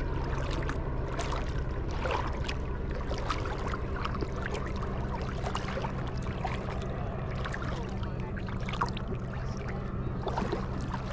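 Shallow seawater lapping and splashing close by, in many small irregular splashes, over a steady low hum.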